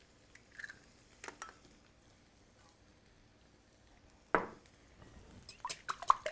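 A few faint clicks of eggshell as an egg is cracked over a glass bowl, then a single sharp knock about four seconds in. Near the end a wire whisk starts beating raw eggs in the glass bowl: quick, light clinks of wire against glass, several a second.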